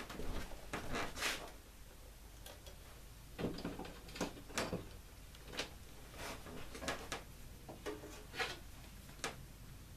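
Irregular light clicks and knocks, about a dozen, of hands picking up hand tools and handling wire leads on a workbench.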